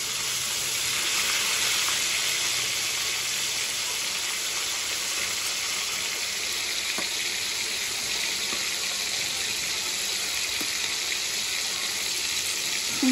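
Seasoned chicken pieces frying in hot vegetable oil in a pan, sizzling steadily, with a few faint clicks.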